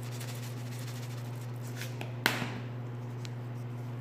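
Salt being shaken from a plastic shaker onto diced raw chicken in a stainless steel bowl: faint rustling and one sharp tap a little over two seconds in, over a steady low hum.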